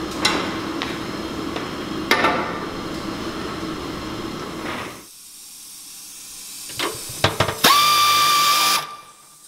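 Metal knocks as parts are worked on a truck chassis, two sharp ones in the first couple of seconds over a steady hum. Near the end a pneumatic wrench runs for about a second with a hissing, steady whine, then cuts off.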